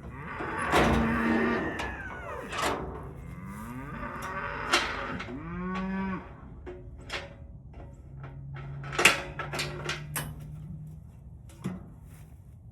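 Cattle mooing: several calls that bend in pitch, then one long, low, steady moo, with knocks and clatter mixed in.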